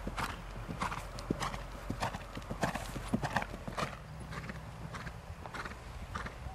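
Hoofbeats of a ridden grey horse moving briskly around a dirt arena: a quick, uneven run of thuds and clicks.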